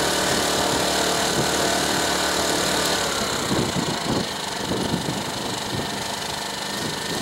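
Champion 2000-watt inverter generator running at full speed with no load, then dropping in pitch and getting quieter about three to four seconds in as its economy mode is switched on, settling to a lower, quieter speed.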